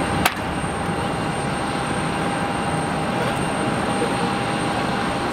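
Steady jet noise from the CFM56 turbofan engines of an Airbus A320-214 climbing away after takeoff, with faint steady tones in it. A single sharp click about a quarter second in.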